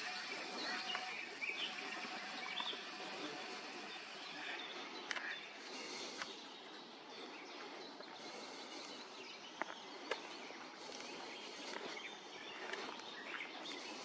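Outdoor marsh ambience: a steady background hiss with scattered short bird chirps and calls, mostly in the first few seconds. A few sharp clicks come about five and ten seconds in.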